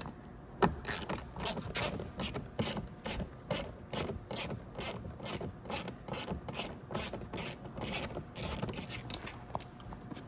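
Ratchet with a T20 Torx bit clicking steadily, about three clicks a second, as screws are backed out of a door panel.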